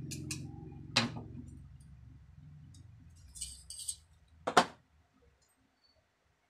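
Small hand tools and metal parts handled at a table: a few light clicks and clinks, a short rattle, then a sharp knock about four and a half seconds in as a pair of pliers is set down. A low rumble fades away over the first couple of seconds.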